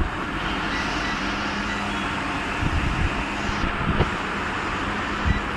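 Steady background whirr with a low hum, and a few light knocks.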